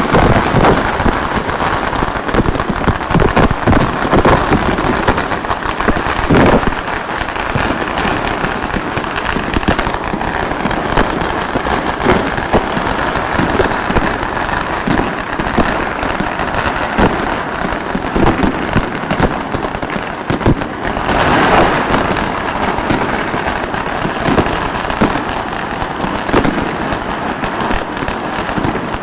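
Fireworks and strings of firecrackers going off in a dense, unbroken crackle, with scattered louder bangs and a louder burst of crackling about two-thirds of the way through.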